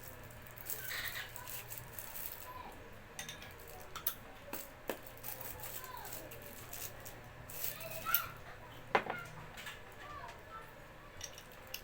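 Tools and their packaging being handled: scattered clicks, knocks and rattles.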